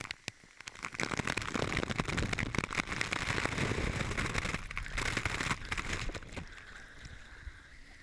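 Waterfall water and spray hitting a GoPro camera up close: a rushing, crackling noise full of rapid taps, dying down about six and a half seconds in.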